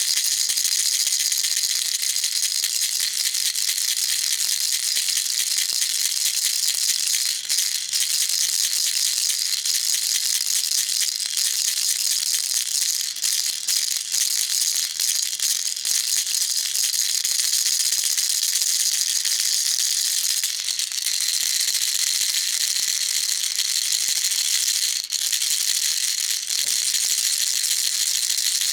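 Baby rattle shaken without pause: a steady, dense, high-pitched rattle, dipping briefly a few times.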